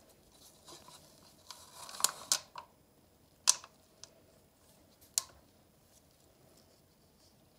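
A wooden craft stick scraping epoxy resin out of a thin plastic cup, about two seconds of scraping with a couple of clicks, then two sharp taps of the stick on the cup a couple of seconds apart.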